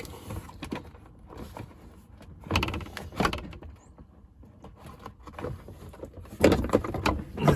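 Knocks and rattles of a plastic box and its rubber grommet being handled and pushed back into place, with two louder bursts of clatter about two and a half seconds in and again about six and a half seconds in.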